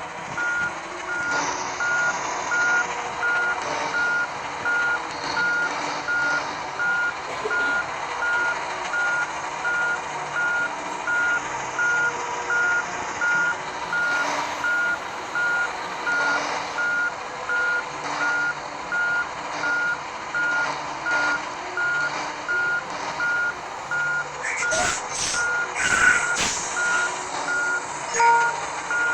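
Heavy vehicle's reversing alarm beeping steadily, about one beep a second, over the noise of a running diesel. A few sharp clatters come near the end.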